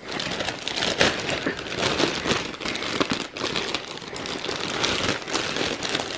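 Plastic mail satchel and its plastic wrapping crinkling and rustling continuously as hands pull them open and dig through them.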